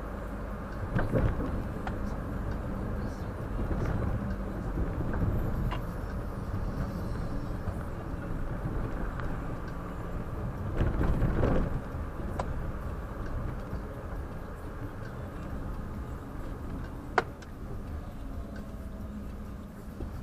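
Road and engine noise inside a moving car's cabin: a steady low rumble that swells louder for about a second midway, with one sharp click late on.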